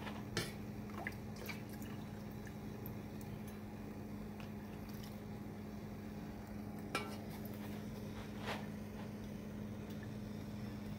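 Ladle dipping into a stainless steel pot of pickling liquid and pouring it through a plastic funnel into a glass jar, with a few light clinks of the ladle against the pot. A steady low hum runs underneath.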